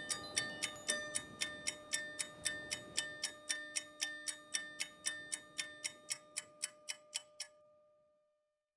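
Faint clock-like ticking from a ringtone track, about four ringing ticks a second over a soft held tone. It dies away and stops about seven and a half seconds in.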